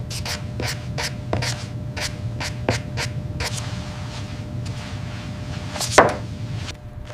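A series of short taps or scrapes, about two a second at first and then sparser, with a louder one about six seconds in, over a low steady hum.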